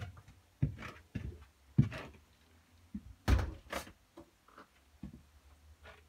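Interior bathroom door being swung and handled: a string of short knocks and thuds, the loudest two close together about three and a half seconds in.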